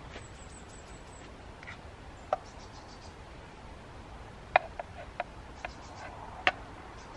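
Serving tongs clicking and tapping against a saucepan while noodles are lifted and tipped into a plastic bowl: a few scattered sharp taps, the loudest about four and a half and six and a half seconds in, over a steady low hiss.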